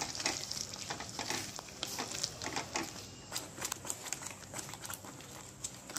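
Spatula stirring and scraping tomato paste in a kadai, in short, irregular scrapes and taps, while the paste sizzles and spits in hot mustard oil.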